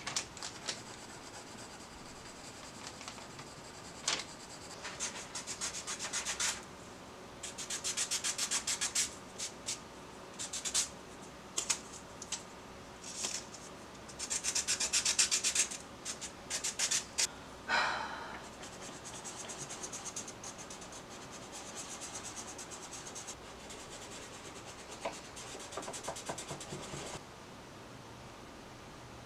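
Graphite pencil scratching on drawing paper, and a pencil point rubbed back and forth on a sandpaper block to sharpen it, in bursts of quick strokes. The strokes stop a couple of seconds before the end.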